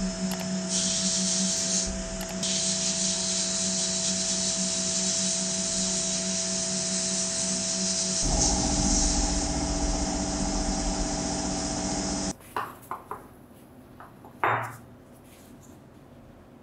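Sandblasting gun in a blast cabinet hissing steadily as abrasive is blasted onto a rusty steel pincer handle, with a steady hum underneath. The hiss stops abruptly about twelve seconds in, followed by a few light clicks and one sharp knock.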